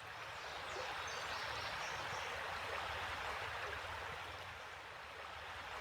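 Creek water flowing and rippling in a steady hiss, fading in at the start.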